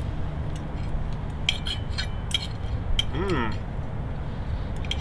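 Metal knives and forks clinking against ceramic plates as grilled papaya slices are cut, a scattering of short light clinks.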